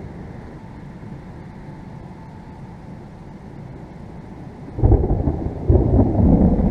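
Thunder from a thunderstorm rumbling low and steady, then growing suddenly much louder a little under five seconds in and stepping up again about a second later.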